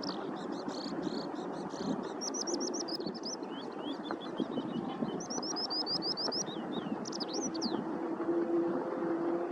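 Eurasian skylark singing a fast, unbroken run of high chirps and trilled repeated notes that stops about two-thirds of the way through. A steady low rumble runs underneath.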